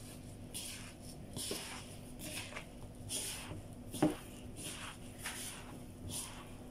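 A plastic-gloved hand kneads raw meatloaf mixture of ground meat, breadcrumbs and egg in a bowl, making repeated squishing, rustling strokes about once a second. There is a sharp knock about four seconds in.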